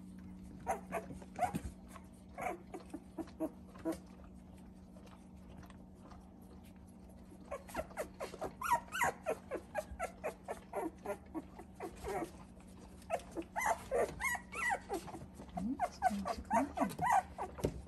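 Two-week-old puppies squeaking and whimpering in short, high cries, a few at first and then in busy clusters through the second half. A steady low hum runs underneath.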